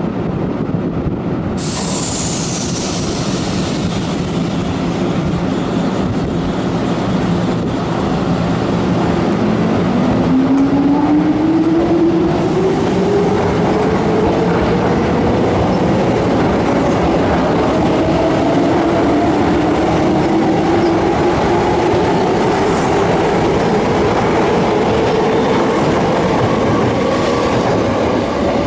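Hankyu 5100-series electric train pulling away from a platform. Its traction motor whine rises steadily in pitch as it accelerates, over wheel and rail noise.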